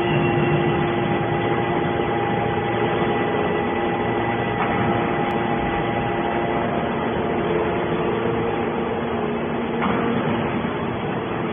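Hydraulic scrap metal baler running, a steady mechanical hum with several steady tones.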